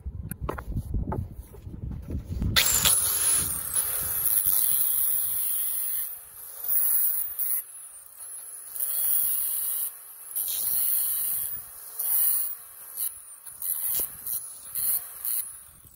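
Angle grinder with a thin disc grinding steel bolt ends down flush with a wooden saw handle. It starts with a few low knocks, then comes a sudden hissing grind about two and a half seconds in, held for a few seconds, followed by repeated short passes of about a second each.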